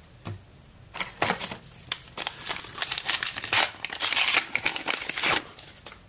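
Foil wrapper of a trading card pack being torn open and crinkled. There is a dense run of crackling rustles starting about a second in and lasting around four seconds.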